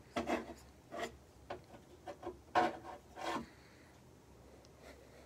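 Plastic RC truck bodies rubbing and scraping as they are handled, a string of short rasping scrapes that stop about three and a half seconds in.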